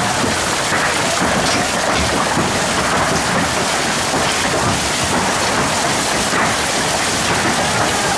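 Heavy hail and rain pelting down on a lawn and its surroundings in a severe storm: a loud, unbroken rush of countless small impacts.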